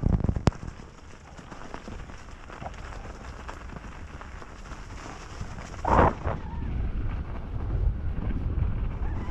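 Kona Process 134 DL mountain bike riding down a snowy trail: tyres rumbling over snow and dirt, with a few sharp knocks of the bike rattling at the start. Wind buffets the camera microphone, building toward the end, with a brief louder noise about six seconds in.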